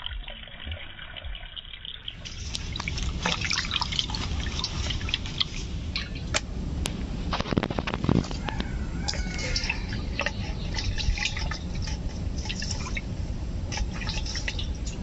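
Water splashing and dripping as ripe palmyra palm fruits are rinsed, with many small irregular drips over a steady wash of water.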